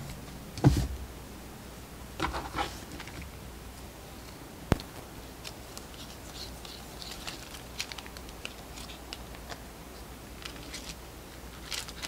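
Hands handling embroidery materials on a wooden tabletop: a knock about a second in, a couple of soft rustles, and a single sharp click near the middle. After that come light ticks, then a rustle near the end as a skein of embroidery thread is handled.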